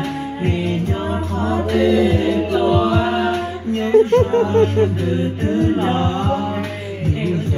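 Several young voices, a boy and girls, singing a song together into handheld microphones, with a low thump recurring about twice a second underneath.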